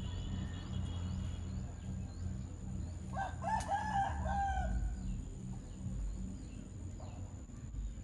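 A rooster crowing once, about three seconds in, for under two seconds, over a steady low rumble, with faint high chirps of small birds.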